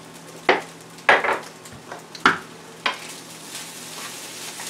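Wooden spatula stirring rice and beans in a stainless steel skillet: four sharp scrapes and knocks in the first three seconds, then a steady sizzle of the rice frying in the hot pan.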